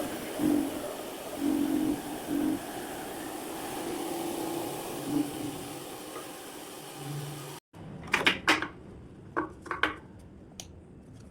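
Mini bandsaw running while resawing a board: a steady motor-and-blade noise with a held tone that swells briefly a few times as the blade works the wood. About seven and a half seconds in it cuts off abruptly, followed by several sharp clacks and knocks of wood pieces being handled.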